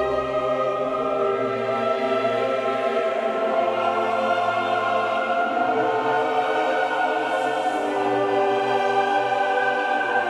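Background music: a choir singing long held chords over an orchestra.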